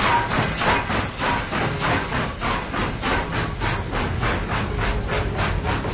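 Steam locomotive chuffing steadily, about four exhaust beats a second, over a low rumble.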